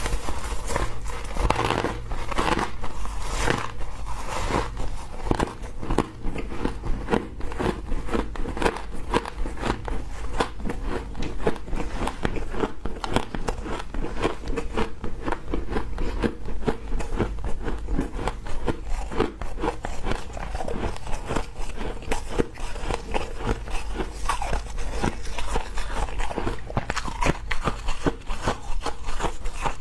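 Freezer frost crunching in a dense, continuous run of small crackling crunches, over a steady low hum.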